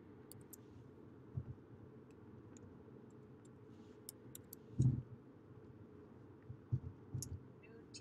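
Scattered faint clicks from a computer mouse and keyboard while text is cut and pasted, with a few dull low thumps; the loudest thump comes just before five seconds in.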